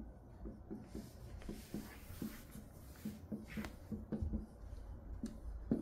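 Red felt-tip marker writing on a small handheld whiteboard: a run of short, faint strokes of the tip across the board.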